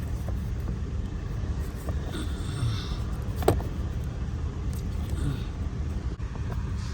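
Small clicks and rattles from hands tying up parts in a car's engine bay, over a steady low rumble.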